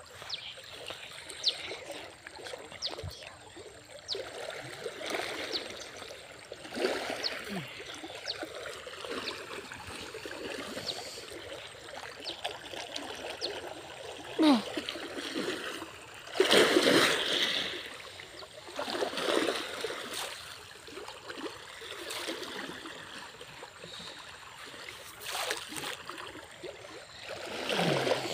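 Water splashing and churning as a person swims and thrashes through a stream, with louder bursts of splashing a little past halfway and again near the end.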